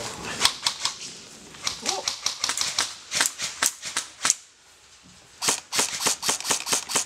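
Airsoft guns firing: runs of sharp shots, quiet for about a second past the middle, then a fast string of about six shots a second near the end.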